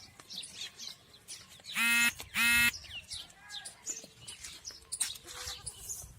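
Goat bleating twice in quick succession, two short calls about two seconds in, with small birds chirping throughout.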